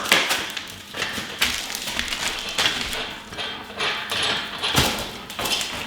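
Scattered light metal clicks and taps as a washer and nut are fitted by hand onto the cart handle's mounting bolt.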